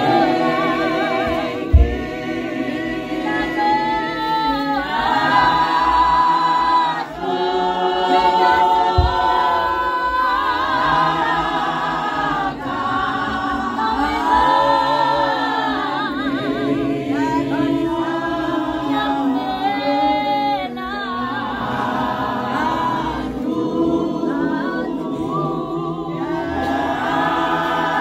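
A congregation of women singing a hymn together unaccompanied, many voices in harmony with wavering, vibrato-laden pitch. A heavy low thump cuts in about two seconds in, and a lighter one around nine seconds.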